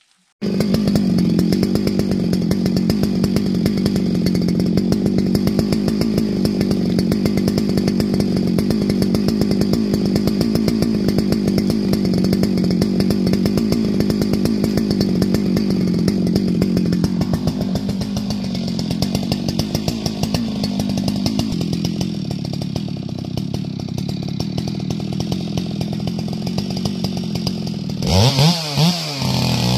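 Gas chainsaw starting about half a second in and running at a steady high pitch through a long cut in tamarack. Its sound changes about two-thirds of the way through, and near the end it revs up and down in quick blips.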